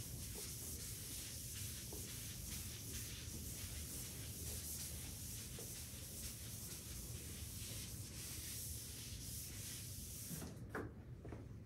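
A board eraser rubbing across a chalkboard, a steady wiping noise that stops about ten seconds in; a light knock follows near the end.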